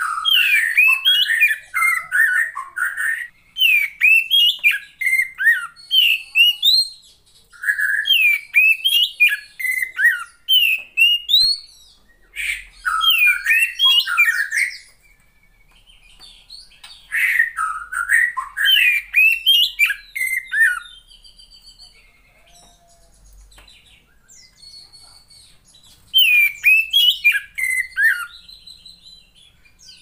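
Female oriental magpie-robin singing: runs of quick whistled, chirping notes that sweep up and down, broken by short pauses, with a quieter lull about two-thirds of the way through before one more burst.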